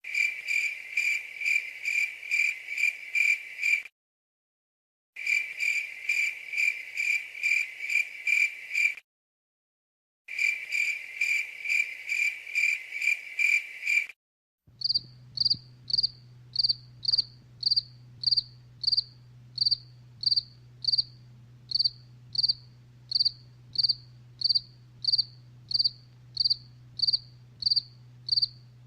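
Crickets chirping. First come three stretches of rapid, evenly spaced chirps, each about four seconds long and cut off by short dead silences. About halfway through, a higher-pitched cricket takes over, chirping steadily about twice a second over a low hum.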